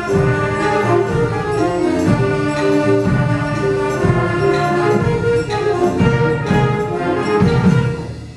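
School jazz band of saxophones, trumpets and trombones playing sustained chords over a steady beat, swelling to a final chord that stops about eight seconds in.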